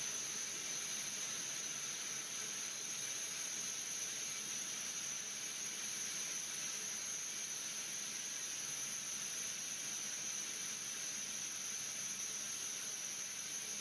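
Steady hiss with a thin high whine over it, unchanging throughout.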